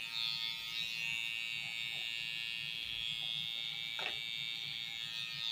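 Electric hair clippers buzzing steadily as they trim the hair at the nape and side of the head.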